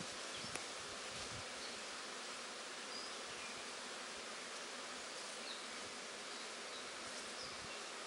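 Honeybee swarm buzzing steadily, with a small click about half a second in.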